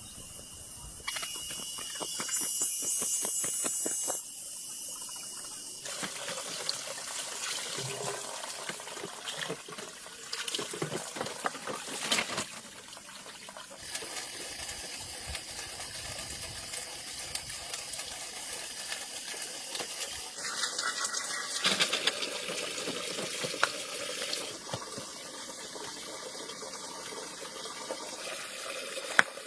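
Water running and splashing, with scattered clicks and knocks.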